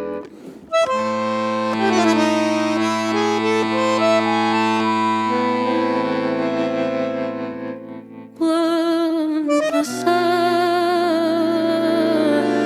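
Bandoneón playing a slow instrumental passage of held, overlapping chords. It drops away briefly near the start and again at about eight seconds, after which wavering held notes come in.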